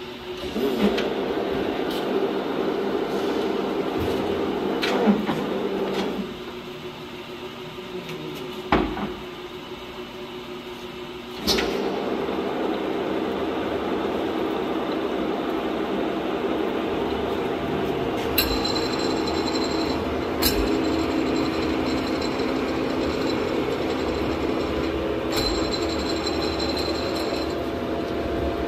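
LeBlond gap bed engine lathe's headstock gearing and spindle running with a steady gear whine. It starts about a second in and stops near six seconds. A single clunk comes near nine seconds, then the lathe starts again at about eleven and a half seconds and keeps running. A higher whine joins it twice in the second half.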